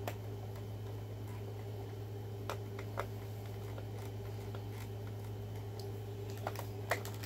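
A few faint clicks and scrapes of a small screwdriver working stubborn screws on a plastic toy car's battery cover, over a steady low hum.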